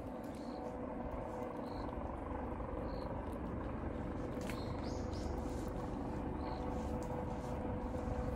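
Cat lapping milk from a bowl, faint wet licks over a steady low mechanical drone, with a short high chirp repeating every second or so.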